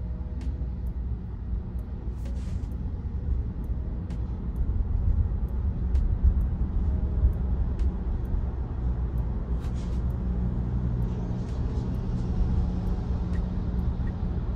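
Steady low road and traffic rumble heard inside a Tesla's cabin as it drives slowly in city traffic beside a semi-truck.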